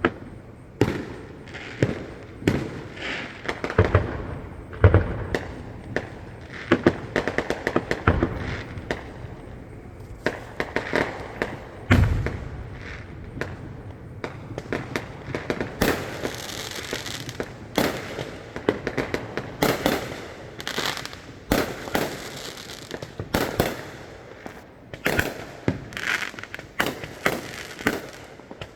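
A fireworks display heard from a distance: a continuous barrage of shells bursting, with several deep booms among rapid crackling and popping.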